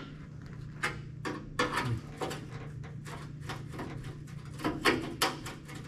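Gloved hands handling and tugging at a freshly cut car roof-skin panel: a string of irregular light metallic clicks and knocks, over a steady low hum.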